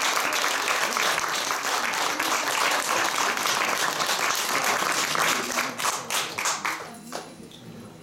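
Audience applauding. The clapping thins into a few separate claps about six seconds in and dies away near the end.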